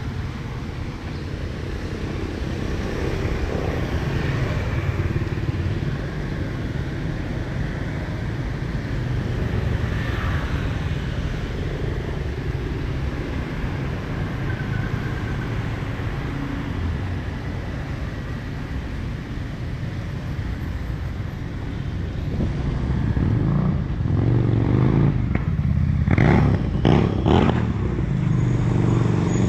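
Street traffic of motorbikes and cars passing, a steady rumble that grows louder in the last several seconds, with a few sharp clattering knocks near the end.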